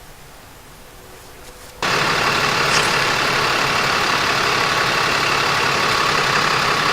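Quiet outdoor background, then about two seconds in a loud, steady engine sound starts abruptly, like a heavy vehicle idling, and holds unchanged.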